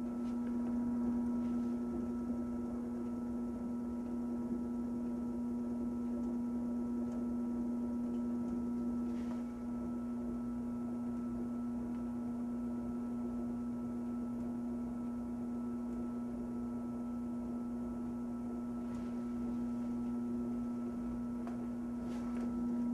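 Electric potter's wheel running with a steady, unchanging hum while it spins a clay pot.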